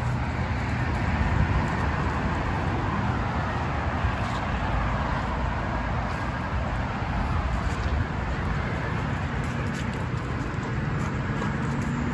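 Steady low rushing outdoor background noise with no distinct events.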